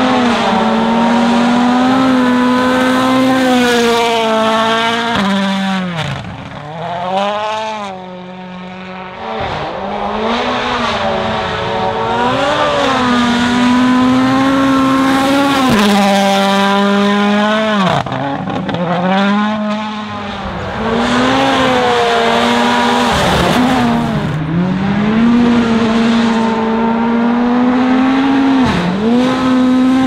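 Toyota Yaris WRC rally car's 1.6-litre turbocharged four-cylinder engine at high revs, passing at speed on a loose gravel road. The revs drop and climb again many times as it shifts gear and lifts for corners, with tyres and gravel hissing underneath.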